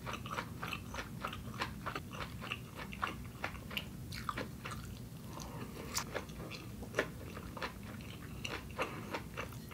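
Close-up chewing of inari (seasoned rice in a fried tofu pouch) topped with seaweed salad: a run of soft, irregular mouth clicks, several a second.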